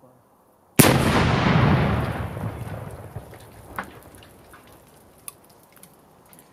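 A pressure cooker bomb filled with 3 kg of ammonal explosive detonates about a second in: one sudden, very loud bang that dies away over a few seconds with an echoing tail. A few isolated sharp ticks and pops follow as it fades.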